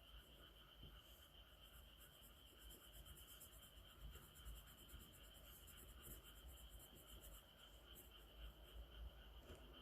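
Faint scratching of quick, repeated drawing strokes on paper, as in shading, starting about a second in and stopping just before the end.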